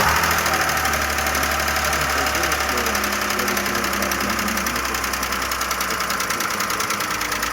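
Audi A6 V-engine idling just after a restart, with a fast, steady metallic ticking knock from the hydraulic valve lash adjusters. These can take a long time to fill with oil and stop knocking.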